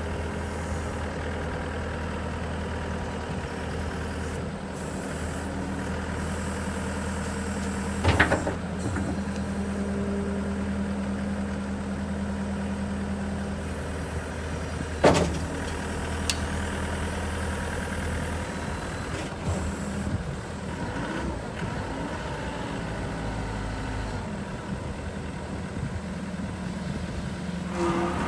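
John Deere 333E track skid steer's diesel engine running steadily at idle, with two sharp knocks, about eight and fifteen seconds in.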